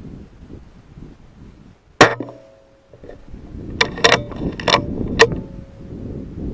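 A single shot from a Weihrauch HW100 PCP air rifle, a sharp crack about two seconds in, then a quick run of four or five metallic clicks and clacks, typical of cycling the rifle's side lever to reload. Low wind rumble on the microphone underneath.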